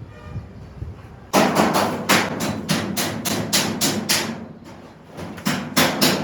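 Rapid hammer blows, about four a second, starting about a second and a half in, then after a short pause three more blows near the end.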